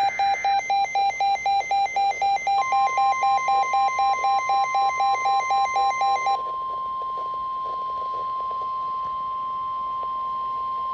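Emergency alert receiver sounding: rapid, evenly spaced electronic beeps. About two and a half seconds in, a steady NOAA Weather Radio warning alarm tone joins them and holds on. The beeps stop about six seconds in, leaving the steady tone alone. Together they signal an incoming flood warning.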